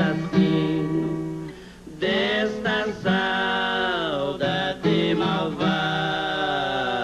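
Viola caipira playing under two men singing a moda de viola, the voices holding long sustained notes.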